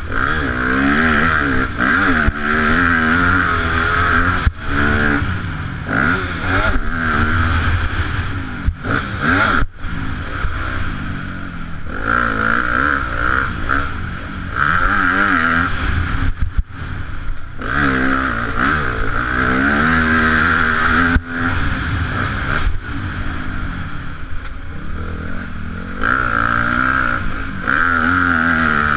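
Yamaha YZ250F four-stroke single-cylinder motocross bike engine on the track, its pitch repeatedly climbing under throttle and dropping back, with a few sharp knocks along the way.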